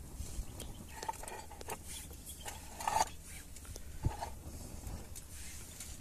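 Small wood fire crackling with scattered light clicks under a clay griddle. There is a low steady rumble throughout, and three short animal calls come about one, three and four seconds in.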